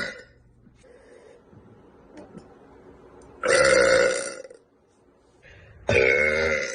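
A young woman burping: the tail of one burp at the very start, a long belch lasting about a second about three and a half seconds in, and another starting near the end.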